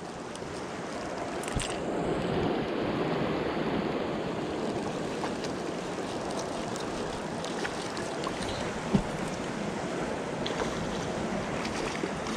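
Steady rush of river current, with a short knock about nine seconds in.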